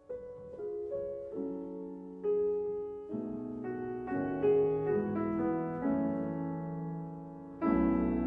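Background piano music: a slow, gentle melody of single notes and chords, each struck and left to fade, with a fuller chord near the end.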